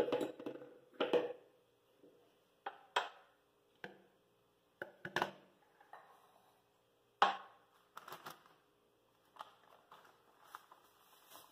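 Intermittent knocks and plastic-bag rustling as sweet cassava starch is tipped from its bag into a glass and the glass is set down on a stone countertop.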